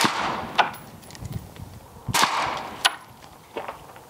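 Two suppressed rifle shots about two seconds apart from a 16-inch 5.56 AR-15 fitted with a Sig Sauer SRD 7.62 suppressor. Each is a sudden report with a short decaying echo, followed within a second by a sharp click.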